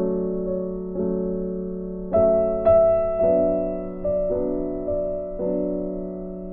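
Background piano music: soft chords struck about once a second, each ringing and fading away.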